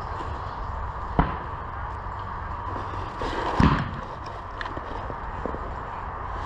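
Airsoft gunfire: one sharp crack about a second in, then a louder pop with a dull thud about three and a half seconds in, over a steady background hiss.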